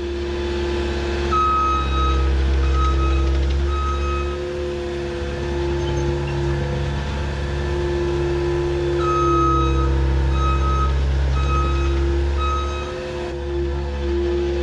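ASV compact track loader's diesel engine running steadily under load, its reverse alarm beeping in two spells of about two beeps a second as the machine backs up.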